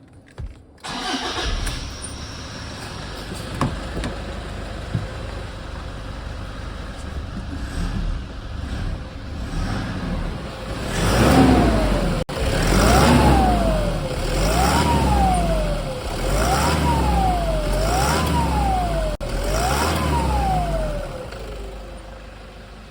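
Toyota Hilux 1KD 3.0-litre four-cylinder turbodiesel idling, then revved six times in quick succession. Each rev brings a whistle from the turbo that rises and falls with engine speed, the sign of a broken turbocharger.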